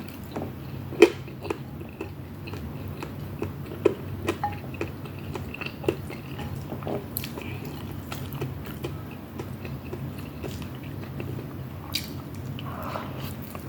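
Close-up eating sounds: chewing and biting, with many short wet mouth clicks and smacks, the sharpest about a second in, over a steady low hum.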